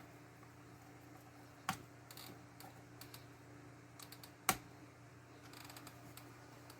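Light clicks and taps of small hand tools and screws being handled on a plastic RC truck chassis, with two sharper knocks, the louder one about halfway through, and a short run of soft scratchy clicking near the end.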